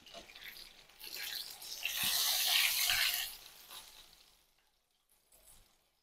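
Battered oyster mushroom deep-frying in hot oil, a sizzle that swells loud for a couple of seconds as it is turned with metal tongs, with a couple of light knocks. The sizzle then fades away about four seconds in.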